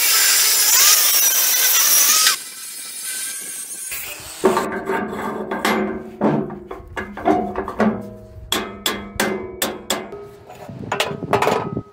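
Cordless angle grinder cutting through a steel tube, its disc whining, stopping abruptly about two seconds in. From about four seconds in, a run of sharp, ringing metal knocks and clinks as a small square steel tube is worked into a square steel socket.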